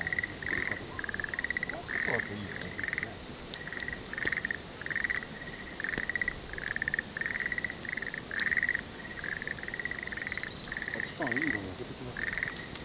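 A chorus of frogs calling: short, trilled croaks repeating about every half second. Faint crackles from a wood fire burning in a folding steel fire stand come through them.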